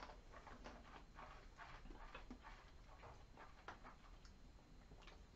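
Near silence with faint, irregular clicks and smacks of mouths sipping and chewing whisky while tasting it.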